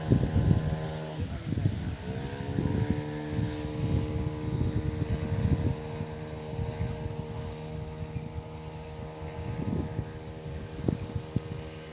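A small boat's engine running. Its pitch drops about a second and a half in as it slows, then it holds a steady speed. Wind gusts buffet the microphone throughout.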